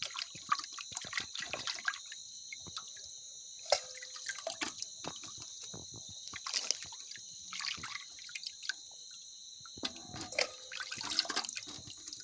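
Hands sloshing and squeezing pieces of meat in water in an aluminium bucket: irregular splashes and drips. Steady high insect chirping runs behind.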